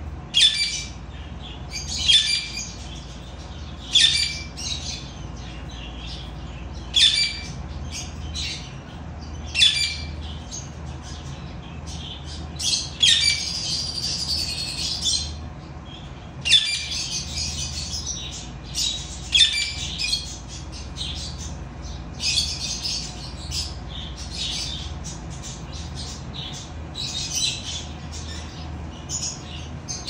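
Cockatiels squawking: short harsh screeching calls every two to three seconds, with longer bursts of chatter around the middle and again near the end.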